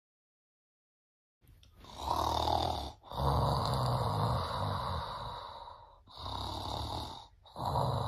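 A person snoring: about four long snores in a row, starting after a second and a half of silence.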